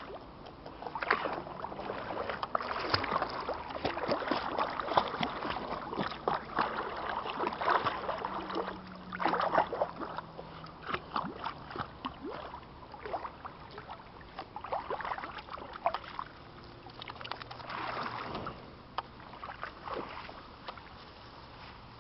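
A small spaniel wading and swimming, its paddling making dense, irregular splashes in the water for about the first twelve seconds. After that the splashes come fewer and quieter.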